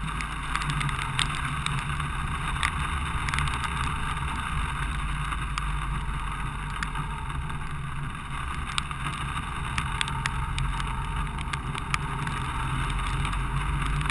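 Vehicle travelling along a rain-soaked street: a steady deep rumble and wet-road hiss, with many scattered sharp ticks of raindrops striking the camera.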